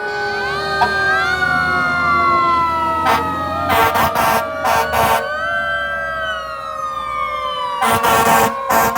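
Several emergency-vehicle sirens wailing at once, their pitches slowly rising and falling and overlapping, with short loud horn blasts about three seconds in, again between four and five seconds, and near the end.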